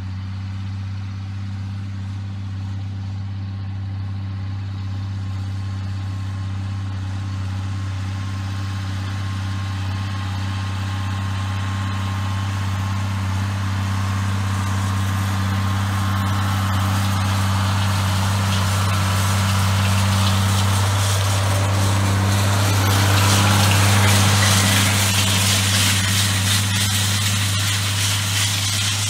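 John Deere 4250 tractor's six-cylinder diesel engine running at a steady pitch while pulling a chain harrow, growing louder as the tractor approaches. It is loudest about four-fifths of the way through, then eases slightly.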